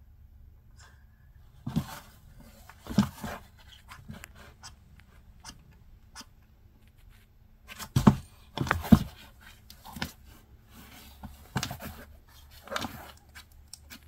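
Irregular thumps and scrapes from a large African bullfrog (pixie frog) shifting and lunging against the floor of a plastic enclosure while a giant centipede lies across its back. The loudest knocks come about eight to nine seconds in.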